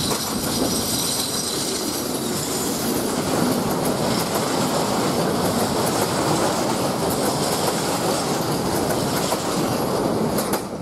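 Freight train of empty stake flat wagons behind an SU46 diesel locomotive rolling past close by, a steady rumble with wheels clattering over the rail joints. The sound drops away near the end as the last wagon clears.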